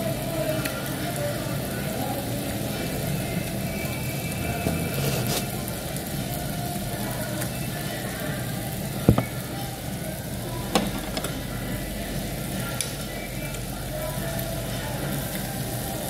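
Steady low hum of restaurant ventilation, with faint background music. Two sharp clinks of utensils on dishes about nine and eleven seconds in.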